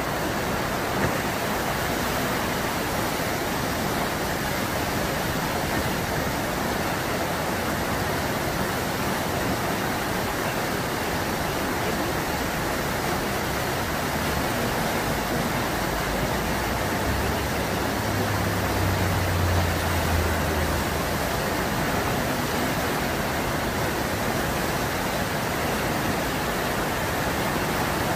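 Whitewater of the Eisbach standing river wave rushing steadily, a constant roar of fast water breaking over the riverbed step. A low rumble swells briefly about two-thirds of the way through.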